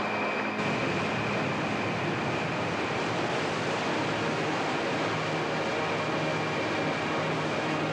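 Rushing water of a mountain stream: a steady, dense wash of water noise.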